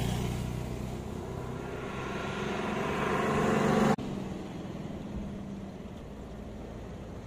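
Motor vehicle engines running: a loud engine drone that swells until it cuts off abruptly about four seconds in, followed by quieter steady engine idling.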